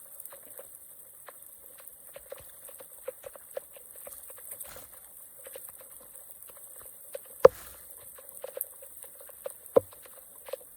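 Water trickling and dripping with small irregular pops, as of water draining through debris. Two sharp knocks stand out in the second half.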